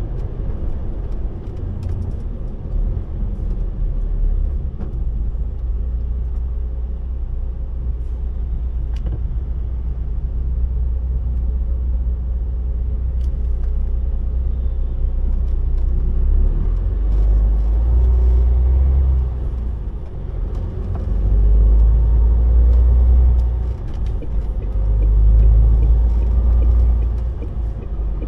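Loaded heavy truck driving, its diesel engine and road noise making a steady low rumble. The rumble swells louder several times in the second half as the truck comes out of a roundabout and picks up speed.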